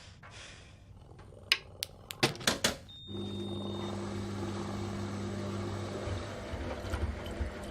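A household appliance being switched on: a few clicks and knocks, a short high beep about three seconds in, then a steady electric motor hum that keeps running.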